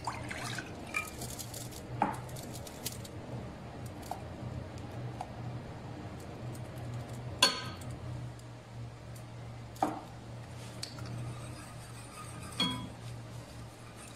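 A few sharp clinks of a ceramic bowl and a utensil against a metal saucepan as cornstarch is tipped into water in the pan and stirred. The loudest clink comes about halfway through, over a low steady hum.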